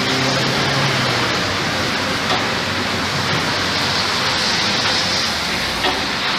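Steady, loud rushing noise with no clear pitch, and a couple of faint clicks.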